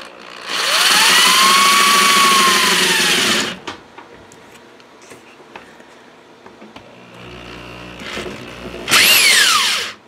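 Corded Black & Decker drill spinning a 3-inch bi-metal hole saw through a plastic modem lid. One loud run of about three seconds has the motor pitch rising and then falling. A short second burst near the end winds down in pitch.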